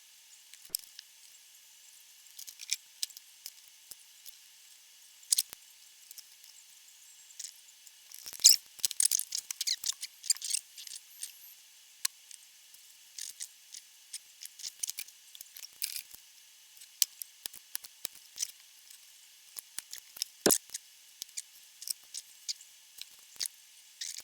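Small hand tools at work on an amplifier's parts: scattered light clicks and snips, as of side cutters trimming component leads. The clicks come thick and fast from about eight to eleven seconds in, and there is one sharper click about twenty seconds in.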